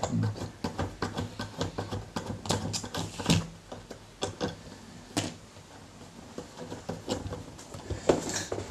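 Small plastic clicks and taps from knob caps being worked off the potentiometer shafts of a Tascam mixing console. The clicks come quickly for the first three seconds, then more sparsely, with a sharper knock about three seconds in and another about five seconds in.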